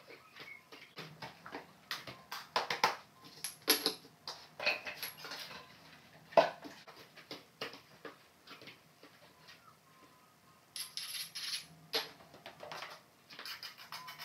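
Irregular clicks, taps and clinks of ceramic tile pieces and hand tools being picked up, handled and set down, with a sharper knock about six seconds in.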